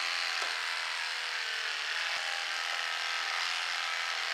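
Electric horse clippers running with a steady buzz as the blades shave the horse's coat on its neck.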